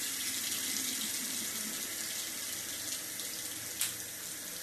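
Faucet running steadily, its stream splashing onto a stainless steel sink drain ring, with one short click near the end.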